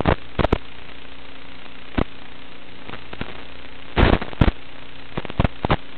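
Steady hiss and hum of an analog FPV video link's audio channel, broken by loud crackling pops as the signal breaks up: a burst at the start, single pops about half a second and two seconds in, a longer crackle about four seconds in, and a few more near the end.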